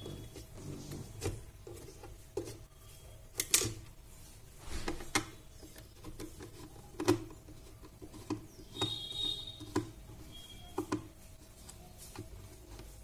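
Screwdriver backing out the mounting screws of a speaker driver's metal frame on a subwoofer cabinet: scattered clicks, taps and scraping as the tool turns and shifts, with sharp clicks about three and a half and seven seconds in and a brief squeak near nine seconds.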